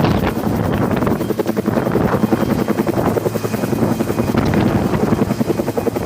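Bell 212 helicopter running close by, its main rotor giving a loud, steady, fast chop.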